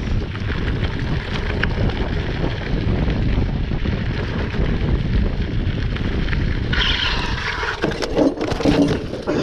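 Wind buffeting the camera microphone and tyres rumbling over a gravel track on a moving gravel bike. About seven seconds in, the sound turns harsher and scratchier, with irregular clattering near the end as the rider goes down beside a wooden pole.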